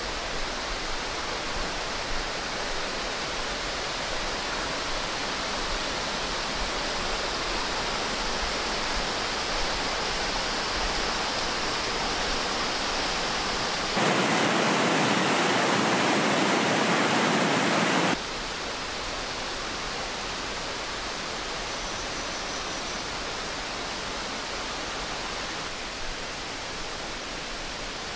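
Flowing water in a hillside irrigation canal, a steady rushing that jumps abruptly louder for about four seconds in the middle, then drops back.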